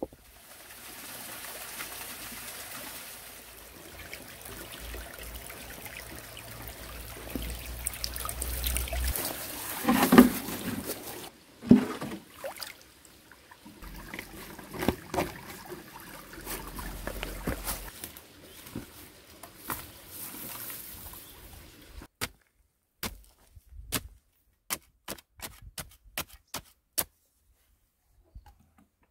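Water trickling and pouring while a plastic jerry can is handled, with two louder knocks midway. Then a sharpened wooden pole is jabbed into dry, stony soil again and again, about two sharp strikes a second, stopping near the end.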